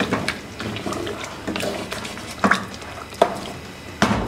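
A wooden spatula stirring chicken curry gravy in an aluminium pressure cooker, with wet scraping and a few sharp knocks of the spatula against the pot.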